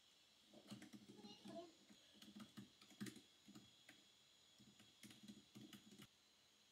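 Faint typing on a computer keyboard: irregular key clicks that stop abruptly about six seconds in.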